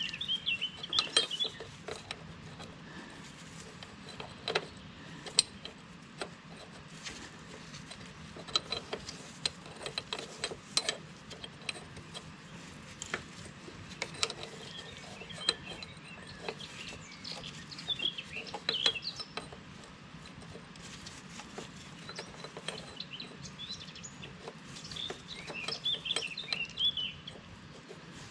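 Scattered sharp metallic clicks and knocks of hand tools on hydraulic hose fittings being worked, with bursts of birds chirping several times in the background.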